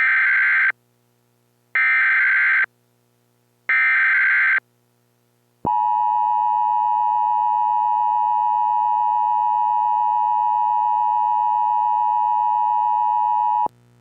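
Emergency Alert System SAME header: three short bursts of screeching digital data, each about a second long with a second's gap between them. A little later comes the EAS attention signal, a steady tone lasting about eight seconds that cuts off shortly before the end. Together they mark the start of an emergency alert broadcast.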